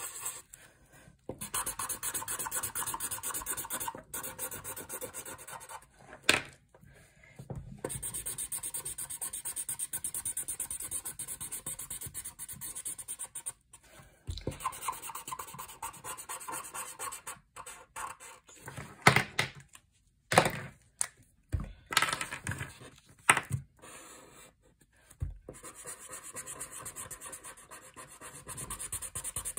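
Felt-tip permanent marker scratching rapidly back and forth on paper as areas are coloured in, in stretches of strokes broken by short pauses. A few sharp clicks and knocks come partway through.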